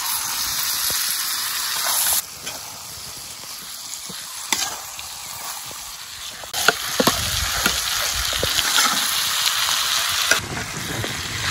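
A whole beer-marinated chicken sizzling in hot oil and onion-tomato masala in a black kadai, with a few scrapes of a metal spatula as the masala is spooned over it. The sizzle is louder for the first couple of seconds, drops, then rises again about two-thirds in.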